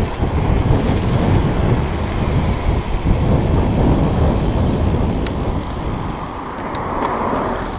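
Wind buffeting the microphone of a handlebar-mounted action camera, with tyre rumble, as a Specialized Demo downhill mountain bike rolls down a paved street. A few sharp clicks come in the second half.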